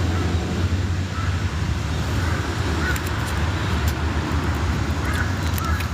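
Steady low outdoor rumble, with faint short chirps and a few light clicks now and then.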